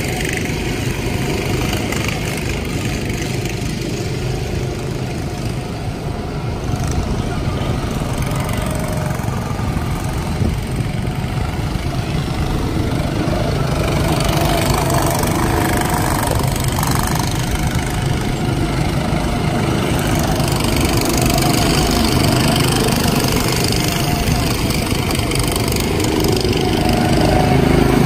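Small go-kart engines running steadily as karts lap the track, the sound growing louder toward the end as a kart comes near.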